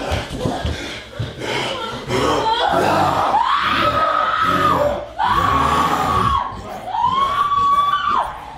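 A few knocks of a scuffle, then a person screaming four times, each scream held for about a second and a half at a steady high pitch before it breaks off.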